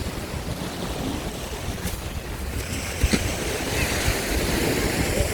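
Waves washing ashore, with wind rumbling on the microphone; the wash swells louder about halfway through.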